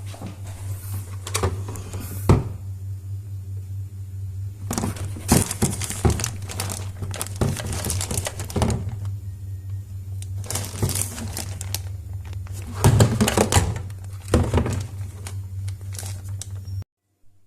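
Washing machine's spin dryer running with a steady electric hum and irregular knocking and clattering: the strange noise of a dryer that is jamming and not spinning properly. The sound cuts off abruptly near the end.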